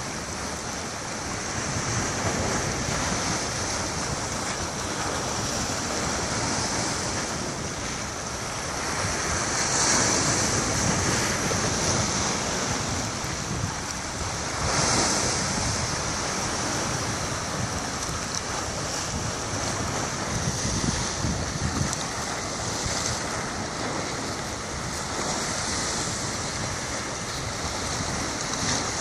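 Sea waves washing against a rocky shore, with wind blowing across the microphone. The sound swells louder about ten and fifteen seconds in.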